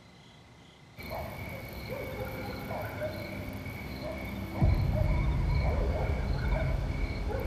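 Night ambience of crickets chirping in a steady rhythm, about two chirps a second, starting suddenly about a second in. Halfway through, a deep low rumble comes in abruptly and grows loud over the chirping.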